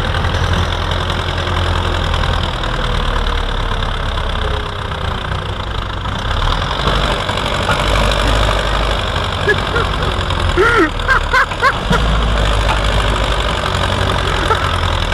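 An engine running steadily with a low rumble, with a few short high squeaks about ten seconds in and some sharp ticks near the end.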